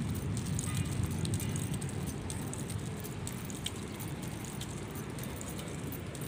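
Street background noise: a steady low rumble of road traffic, a little louder in the first second or so, with faint light ticks scattered through.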